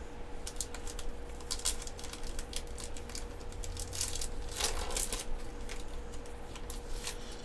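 Yu-Gi-Oh trading cards being flipped through by hand: a run of light clicks and slides of card stock, busier twice, over a faint steady hum.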